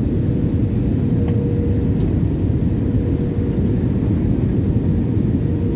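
Steady low rumble of engine and airflow noise inside the cabin of an Airbus A320 airliner in flight, with a faint steady tone over it.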